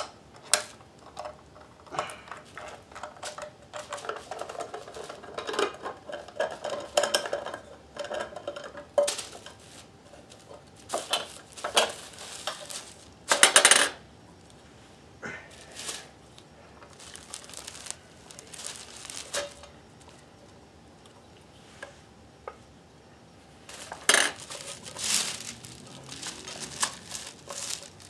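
Scattered clicks and clinks of a screwdriver, small screws and metal parts as a vintage Kenmore 158.1030 sewing machine is worked on and shifted about, with a loud clatter about halfway through and another burst of clattering near the end.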